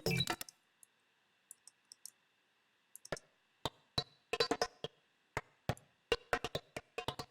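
Drum loop chopped by a gate and run through a phaser and frequency shifter, playing back as choppy, irregular glitch clicks and hits. It drops almost out for about two and a half seconds near the start, leaving only a few faint clicks and a thin high tone, then the stuttering hits come back.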